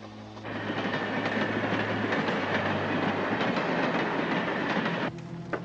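Passenger train running on the rails, a dense steady rush of wheel and track noise that starts about half a second in and cuts off abruptly near the end.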